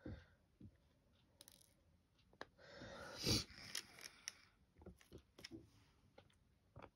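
Small clicks and taps of a diamond painting pen picking up resin drills and pressing them onto the canvas, with a brief rustling scrape about three seconds in.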